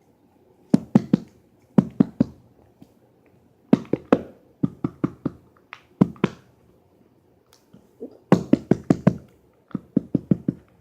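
A small container being shaken by hand, knocking sharply in quick bursts of three or four strokes, about seven bursts with short pauses between.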